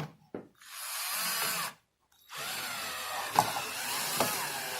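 Cordless drill/driver running in two bursts, a short one and then a longer one, as it drives screws into the door to fix the mortise lock body.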